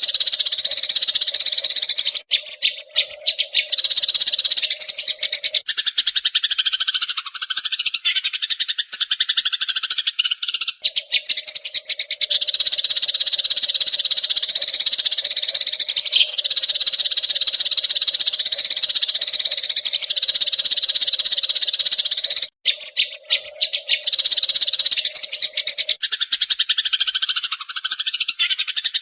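A flock of Eurasian tree sparrows chirping and chattering continuously in a dense, fast stream of high calls. A steady low drone runs beneath them, dropping out for a few seconds at a time.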